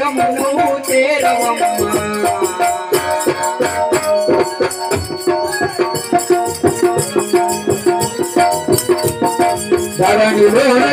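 Devotional group song with an electronic keyboard holding sustained notes over a steady beat of jingling hand cymbals and a hand drum. Singing is heard at the start, then the keyboard carries an interlude, and the voice comes back near the end.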